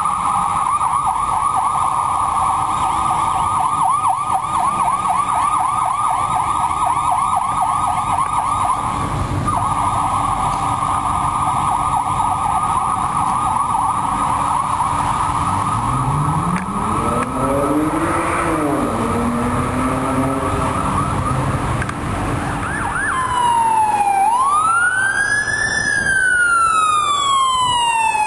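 Emergency vehicle siren in a fast yelp. About three quarters of the way through it switches to a slow wail that rises and falls. Midway, a lower tone briefly rises and falls beneath it.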